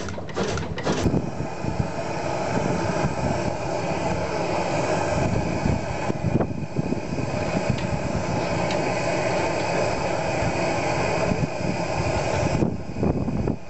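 Blackstone 12 hp oil engine being started, its flywheel turning: a steady mechanical running noise that sets in about a second in and thins in its higher part near the end.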